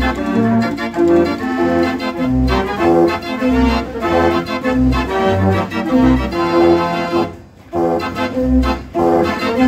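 Mortier dance organ playing a tune on its pipes: bass notes about once a second under chords and melody, with a brief break in the music about three-quarters of the way through.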